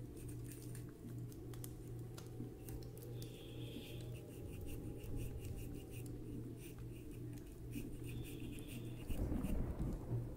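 Faint scratching and scraping of a small pipe tool inside a pipe bowl, clearing out the excess ash after ash has been rubbed onto the bowl walls to build the cake. A low steady hum runs underneath.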